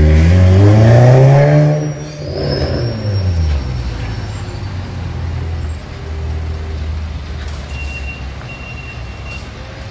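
Scania R450 truck's 13-litre inline-six diesel engine revving up, its pitch rising for under two seconds before dropping back, with a short air hiss about two seconds in, then idling steadily.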